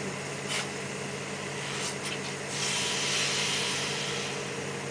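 Steady drone of running machinery holding a constant low hum, with a single click about half a second in and a rush of hiss a little past the middle that lasts about a second and a half.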